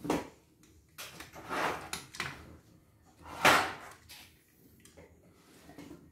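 Handling noises from a partly dismantled CNY E900 portable embroidery machine being worked on by hand: a few short scrapes and knocks, the loudest about three and a half seconds in.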